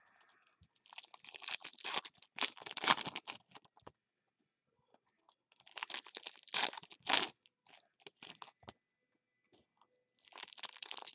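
Foil trading-card pack wrappers being torn open and crinkled by hand, in three spells of crackling with short pauses between.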